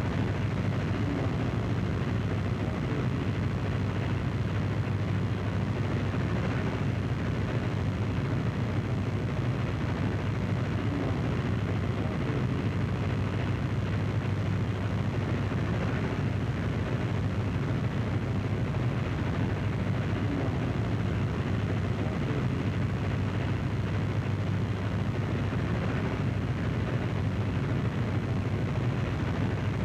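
Steady low engine drone with no rise or fall.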